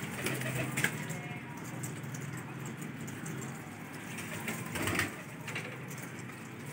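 Domestic pigeons cooing faintly, with one brief louder noise about five seconds in.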